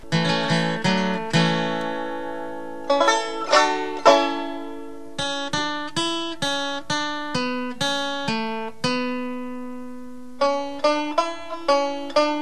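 Music played on a plucked string instrument: single notes struck and left to ring and fade, with quicker runs of notes near the start and near the end.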